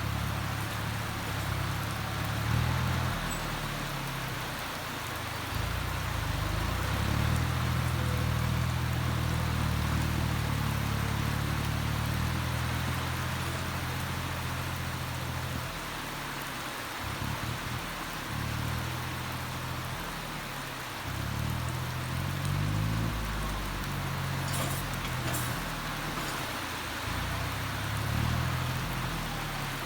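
Engine of a Kubota farm machine running and changing speed under load: louder from about six seconds in, dropping away around sixteen seconds, then picking up again about twenty-one seconds in. Steady rain hiss runs underneath.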